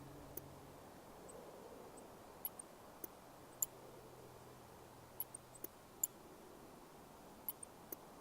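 Computer mouse clicking: about a dozen short, sharp clicks at irregular intervals over a faint steady hum.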